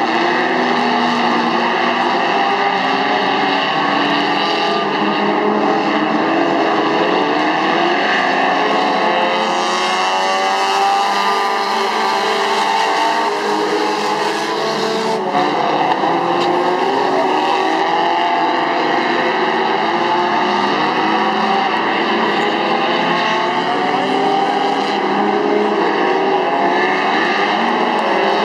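A pack of IMCA Sport Compact dirt-track race cars, four-cylinder compacts, racing together. Many engines run hard at once, their pitches rising and falling as the cars accelerate and lift through the turns, in a steady, loud din.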